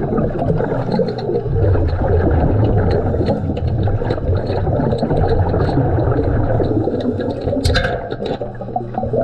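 Continuous underwater rushing and gurgling of a diver's exhaust air bubbles, with scattered light clicks and one sharp click about three-quarters of the way through.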